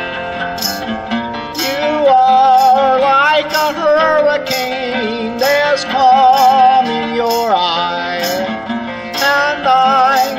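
Harmonica, a Hohner Marine Band in a neck rack, playing a wavering, bending melody over a strummed baritone acoustic guitar tuned down a whole step. The harmonica comes in about two seconds in and carries the tune, with the guitar strum keeping an even beat underneath.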